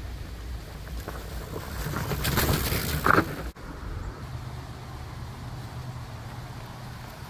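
Fat tires of a QuietKat Jeep electric bike rolling over a dry-leaf-covered dirt trail, a rustling that swells about two to three seconds in as the bike passes close. It cuts off suddenly about three and a half seconds in, and a steadier low rumble with wind on the microphone follows.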